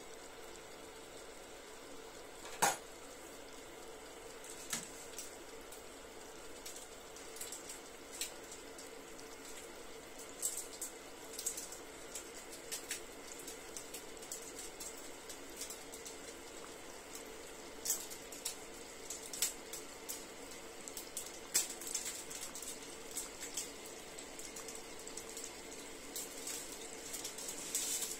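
Meat buns (baozi) frying in hot oil: a steady faint sizzle with scattered sharp pops and crackles that come more often from about ten seconds in, and one louder click about three seconds in.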